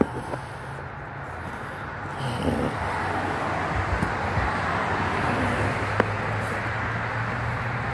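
A motor vehicle running on the street: a steady low engine hum, with a rush of road noise that grows louder from about two seconds in. A sharp click at the start and another about six seconds in.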